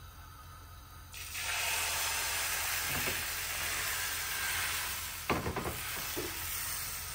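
Crêpe batter sizzling as it is ladled onto a hot non-stick crêpe pan, the hiss starting suddenly about a second in and holding steady. A few short knocks about five seconds in.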